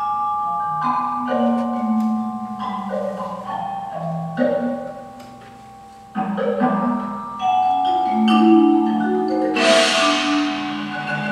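Recorded percussion music with struck mallet-instrument notes that ring on and overlap, and a bright crash near the end.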